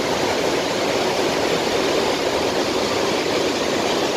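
Steady rushing noise of the flooded Palar river's water.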